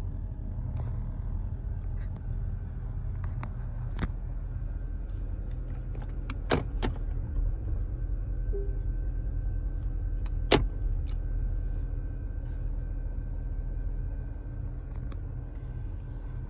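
Porsche Panamera's 4.8-litre twin-turbo V8 idling: a steady low rumble heard from inside the cabin. A few sharp clicks break in, the loudest about ten and a half seconds in.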